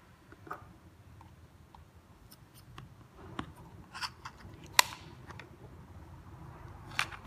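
Scattered clicks and taps from handling plastic handheld two-way radios, the loudest about five seconds in, with quiet room tone between.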